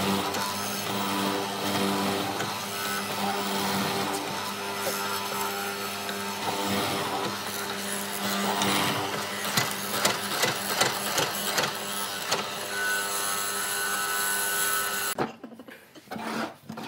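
Mortising machine running with a steady motor hum as its chisel cuts a mortise into old timber, with repeated scraping and knocking as it bores in. Near the end the machine sound cuts off suddenly, leaving a few wooden knocks as timber pieces are handled on a table.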